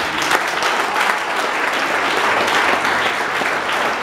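A congregation applauding: dense, steady clapping from many hands.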